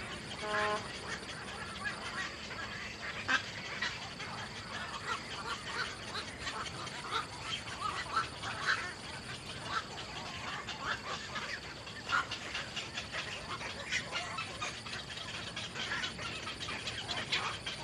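Small birds chirping at a nest: many short, high chirps in quick succession throughout, with one brief nasal call about half a second in.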